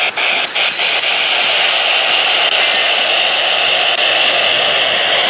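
Freight cars rolling past close by: a steady rush of steel wheels on rail, with a few clicks in the first second as wheels cross rail joints.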